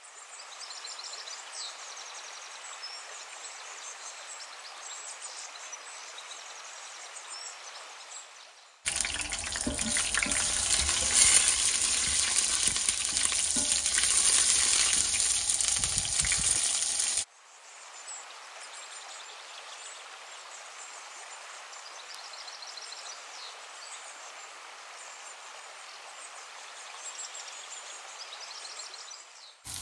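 Food sizzling in hot oil in an enamelled cast-iron skillet as it is sautéed: a steady crackling hiss that swells to a much louder, fuller sizzle for several seconds in the middle before settling back.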